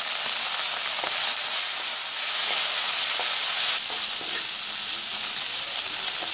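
Okra pieces sizzling steadily as they fry in hot mustard oil in a metal kadai. A wooden spatula gives a few light scrapes and taps against the pan as they are stirred.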